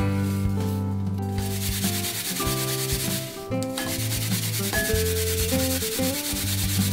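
Peeled nagaimo (Chinese yam) being grated on a plastic grater: rapid, rhythmic rasping strokes, starting about a second and a half in, with a short break halfway through.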